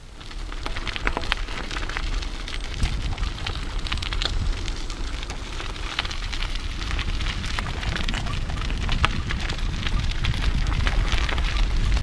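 Bicycle tyres rolling along a forest track strewn with fallen leaves, giving a dense crackling and crunching, over a low rumble of wind on the microphone that grows stronger about three seconds in.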